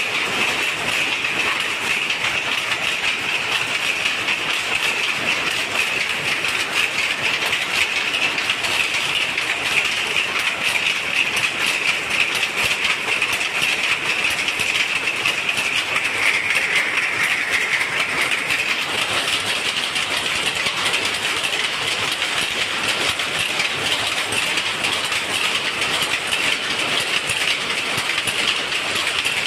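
Many jacquard power looms running together: a loud, continuous mechanical clatter that holds steady.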